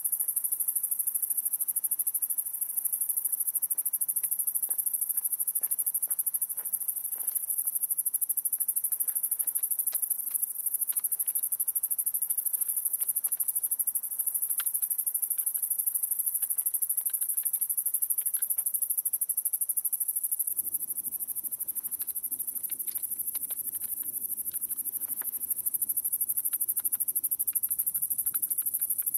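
Steady, high-pitched chorus of night insects, crickets, on a summer evening. Scattered faint clicks, and a low steady noise comes in about two-thirds of the way through.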